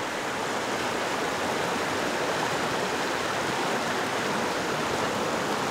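Shallow, fast-flowing river rushing over rocks in steady white-water rapids.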